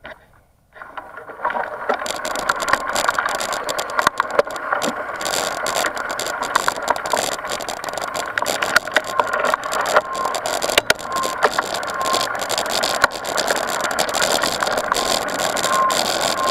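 Mountain bike riding over a dirt trail as picked up by a mounted action camera: a steady rush of tyre and wind noise with constant rattling and clicking, starting about a second in.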